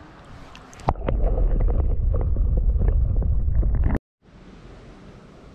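Water sloshing and splashing right at the microphone as a small jack pike is let go by hand in the shallows. The sound is loud, low and muffled, with small splashy clicks through it, from about a second in until it cuts off suddenly about four seconds in. After the cut comes a steady, quieter outdoor hiss.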